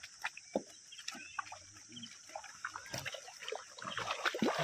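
Water splashing and trickling in irregular small splashes, with scattered light knocks.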